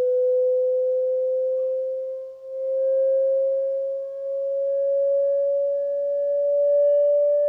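A pure test tone played through a Medion 65-inch TV's speakers, slowly rising in pitch, with faint higher tones above it, as the TV is tested for resonant squeaking. Its loudness dips briefly twice, about two and a half seconds and four seconds in.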